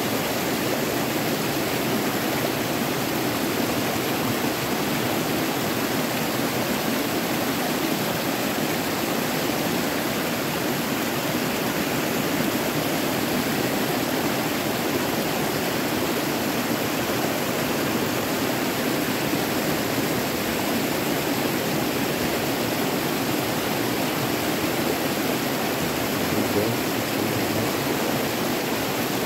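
Steady rushing of flowing river water, an even noise with no change in level.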